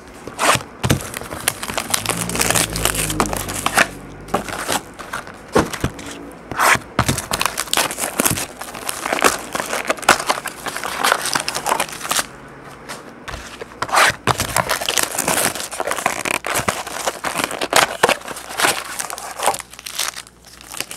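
Plastic shrink wrap crinkling and tearing as a sealed trading-card box is unwrapped, followed by the rustle of foil card packs being taken out of the cardboard box and stacked.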